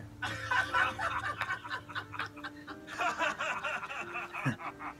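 A man laughing in short, repeated bursts, tailing off near the end.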